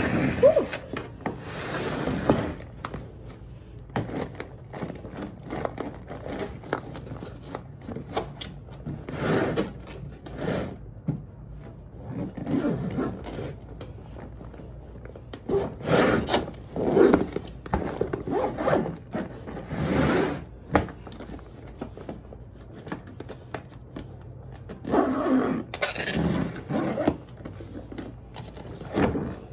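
Suitcase being packed and zipped: zipper pulls and scraping, rubbing handling noises coming in irregular spells.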